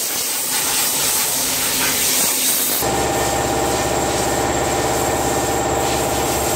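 Steady hiss of compressed-air spray equipment. About three seconds in it changes suddenly to a steady machine hum with several even tones under the hiss.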